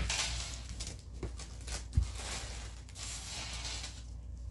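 Rustling and handling noises with light clicks, and one sharper knock about two seconds in.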